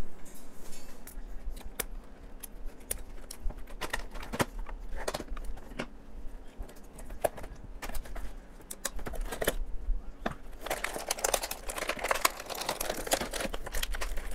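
Toy blaster being unboxed by hand: scattered sharp clicks and snaps of cutters clipping ties and parts being pulled from a cardboard-and-plastic retail box, then several seconds of dense plastic crinkling near the end as a bag of foam darts is handled.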